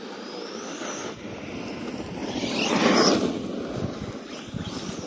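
Electric RC car driving on dusty ground, its tyres scrabbling in the dirt under a high motor whine that glides in pitch. It grows louder to a peak about three seconds in, then fades as the car moves away.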